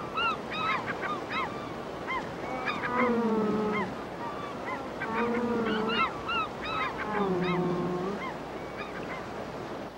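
Gulls calling over rushing river rapids, many short rising-and-falling cries again and again. Three longer, lower calls of about a second each stand out, about three, five and seven seconds in.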